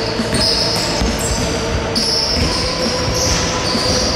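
Basketball being dribbled on a hardwood gym floor, a run of repeated bounces.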